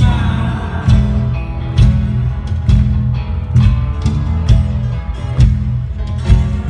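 Live band playing a blues number, with guitar over bass and a steady beat about once a second, heard from the audience.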